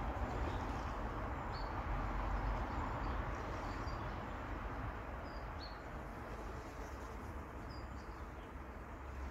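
Riverbank outdoor ambience: a steady rushing background with a handful of short, high bird chirps every second or two.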